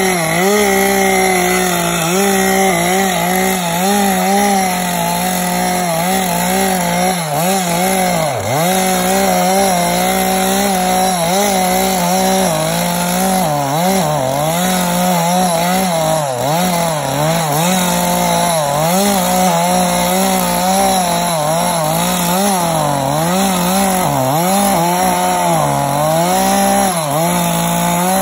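Chainsaw at full throttle ripping lengthwise along a large log. The engine note dips and recovers every second or two as the chain loads up in the cut.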